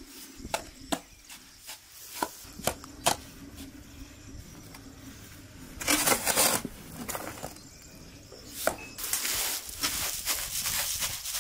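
Sharp knocks and scrapes of a shovel and stones in earth, then rushes of loose soil falling: one about halfway through and a longer one near the end as dirt is poured out of a sack.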